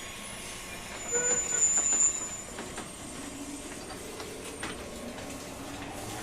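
Interior running sound of a 201-series EMU motor car pulling away. A high wheel squeal, the loudest part, comes about one to two seconds in, over a few rail-joint clicks. From about three seconds in, a low motor tone starts to rise steadily in pitch as the train gains speed under power.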